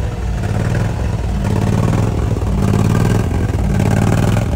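Diesel engine idling under the Ford F-550 truck: a low, even engine note that swells and eases every second or so.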